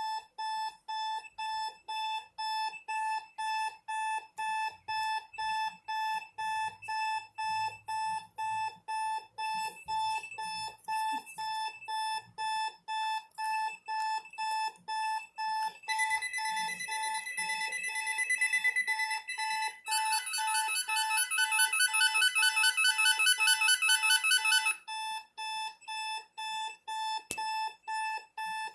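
Electronic alarm clock beeping steadily, about two beeps a second. A little past halfway a phone ringtone joins it, first a high warbling tone, then a louder rapid trilling ring for about five seconds that stops, while the alarm keeps beeping.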